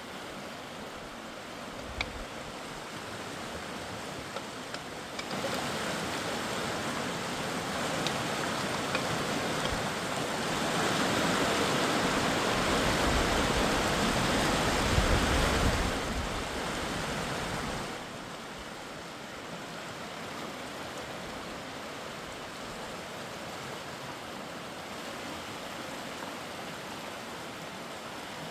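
Mountain river water rushing steadily over stones. It swells louder about five seconds in, is loudest in the middle, and falls back to a steadier level near the last third.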